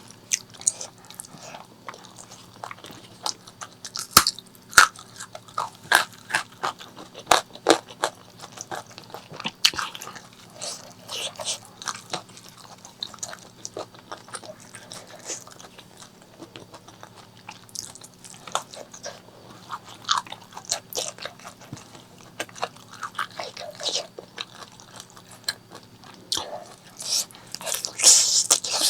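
A person biting and chewing pork leg curry with rice right at the microphone, making many short, sharp mouth clicks at an irregular pace.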